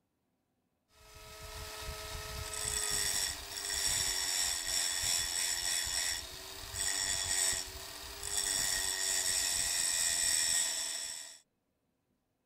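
Angle grinder running with a steady whine, grinding a zinc-plated steel hex nut on its abrasive disc. A rasping, hissing grind comes and goes as the nut is pressed on and eased off a few times. The sound cuts in about a second in and stops suddenly near the end.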